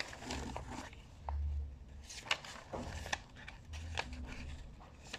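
Glossy paper catalogue pages being handled and turned: irregular soft rustles and page flicks, with short low rumbles of handling noise.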